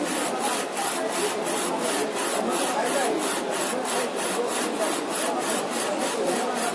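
Textile printer running while printing a sleeve, a steady mechanical swishing that pulses evenly about four times a second.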